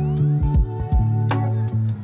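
Background music with held notes and a beat.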